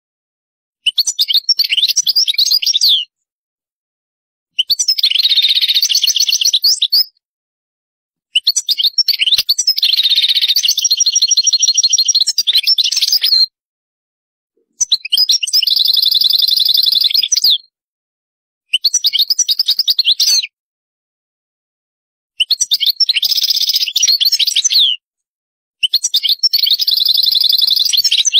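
European goldfinch singing: seven phrases of rapid, high twittering trills, each a few seconds long, separated by silent pauses of a second or two.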